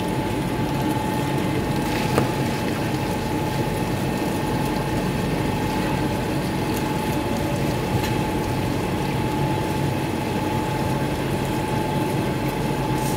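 Paint mixer with vertical stirring shafts running steadily as it churns a tank of white paint: a constant mechanical drone with a steady whine.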